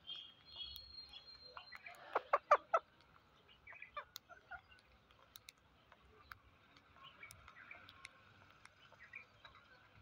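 Rose-ringed parakeets calling while feeding: a quick run of about five short calls about two seconds in, with faint scattered clicks from beaks picking at rice grains.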